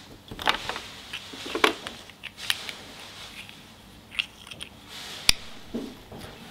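Small hard-plastic toy parts of a Kinder Surprise figure clicking and tapping as they are handled and pushed together, with a sharper snap about five seconds in.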